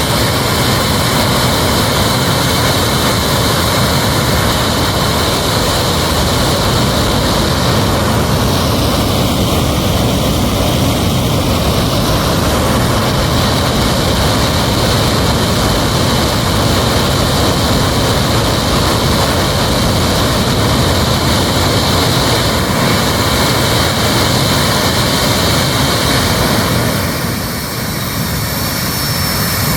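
Loud, steady engine noise that runs without a break and dips slightly in level near the end.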